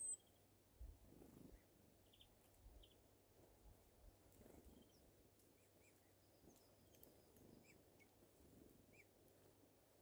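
Near silence with faint, scattered short chirps and calls of small songbirds at a seed feeder, tits and finches. A sharp, high chip right at the start is the loudest sound.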